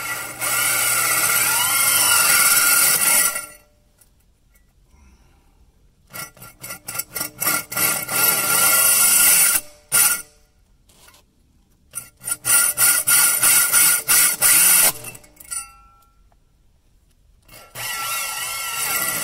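Hand saw cutting through a rubber tire sidewall in quick back-and-forth strokes. The sawing comes in four bouts with short pauses between them.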